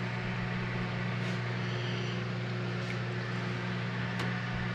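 Steady low hum of a running kitchen appliance, with a few faint light taps as apricot halves are set onto a dehydrator's wire mesh rack.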